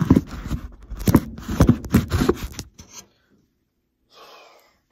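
Rapid scraping, rustling and clicking for about three seconds, then it stops.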